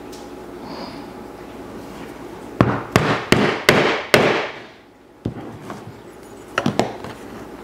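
Five quick mallet blows on a steel strap end punch, driving it through the end of a latigo leather strap to round it off, followed by a single lighter knock and a few small clicks as the tool is lifted and set down.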